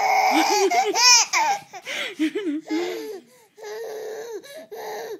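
Baby laughing hard in repeated high-pitched bursts, with a sharp squeal about a second in.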